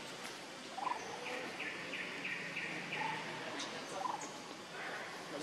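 Animal chirping: a run of about eight short, high notes repeated about three a second, with a few softer, lower short calls around it.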